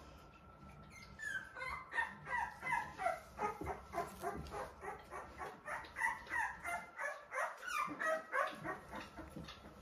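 A one-week-old puppy crying in a rapid string of short, high squeals, each falling in pitch, about three a second, starting a second or so in, as it is held upside down and turned.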